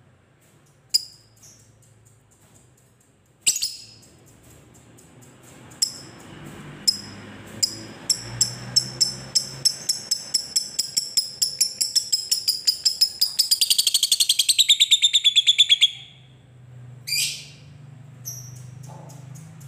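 Fischer's lovebird calling: a few sharp single shrieks, then a long chattering trill (the 'ngekek') of rapid repeated high notes that speeds up and gets louder for about ten seconds before stopping abruptly, then another sharp call.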